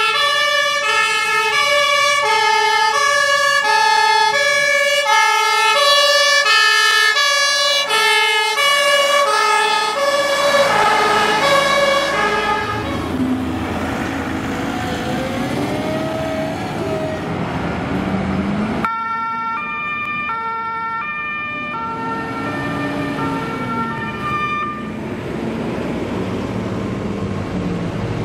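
German fire truck two-tone siren alternating steadily between a high and a low note, loud, for the first dozen or so seconds. It then gives way to diesel fire truck engines running as the trucks pull out of a station, with the two-tone siren sounding again for a few seconds about two-thirds through.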